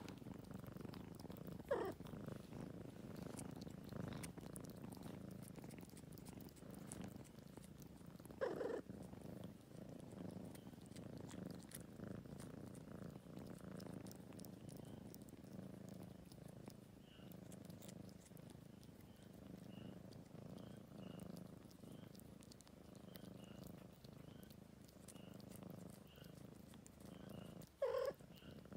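Cat purring steadily, a continuous low rumble, with three brief louder sounds about two seconds in, about eight seconds in and near the end.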